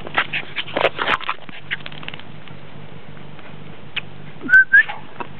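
Quick rustling patter of a puppy scampering on grass in the first couple of seconds, then two short high-pitched squeaks close together near the end.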